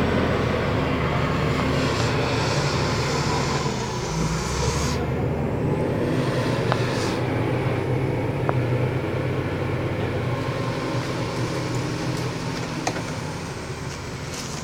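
Heavy vehicle engine running steadily, with a few sharp clicks and knocks over it.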